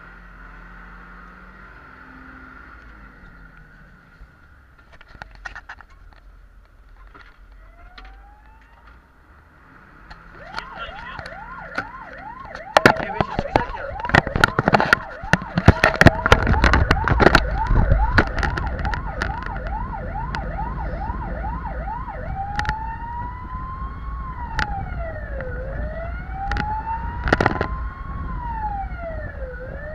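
Fire engine's siren heard from inside the cab: after a low engine hum, it winds up about eight seconds in, then runs a fast yelp of about two cycles a second with a run of loud sharp knocks, and about three-quarters of the way through switches to a slow wail rising and falling roughly every four seconds. The truck's engine rumbles underneath, louder once it is under way.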